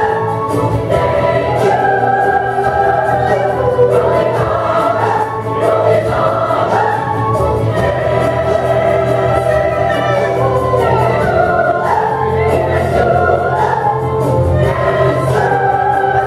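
A large stage chorus of young and adult voices sings a lively number together over instrumental accompaniment with a steady beat.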